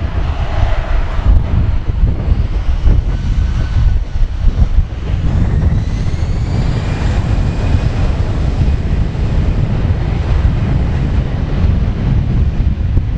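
Jet engines of an Airbus A320-214 (CFM56-5B turbofans) running on the runway as a steady heavy rumble, with a whine that rises in pitch about five to eight seconds in.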